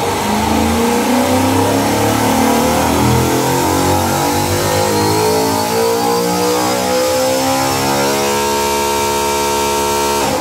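Spintron valvetrain test rig spinning a Gen V LT V8 engine with a hydraulic roller valvetrain, driven by the rig rather than firing. The pitch climbs steadily as the RPM sweeps up, with a thin high whine rising above it, and then holds steady at high speed about eight seconds in.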